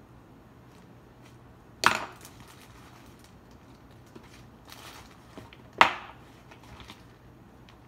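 Two sharp knocks on a tabletop about four seconds apart as a clay piece and tools are handled, with a plastic bag crinkling briefly between them and a few light scraping clicks.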